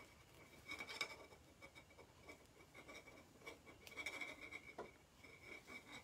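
Faint, scattered rustling and scratching of jute twine being worked by hand through the hole of a small craft ornament and tied, with a few light clicks as the ornament is handled.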